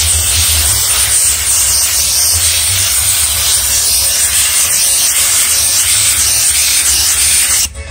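Handheld steam cleaner jetting steam through its nozzle onto a leather car seat: a loud, steady hiss that cuts off abruptly near the end.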